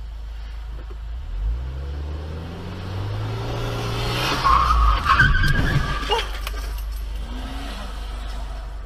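A car engine revving up, its pitch climbing over a couple of seconds, then tyres squealing loudly about four and a half seconds in, with a few sharp knocks, as a car skids under hard braking or a sharp swerve. Steady road and engine noise follows.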